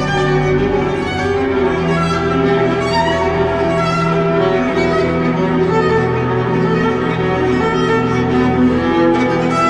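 Background music: slow, sustained bowed strings, violin and cello parts holding long notes over a low bass line.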